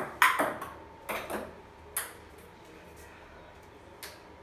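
Table tennis ball clicking against paddles and a wooden dining table in a quick rally, about six sharp hits in the first two seconds, then a pause with one faint tick near the end.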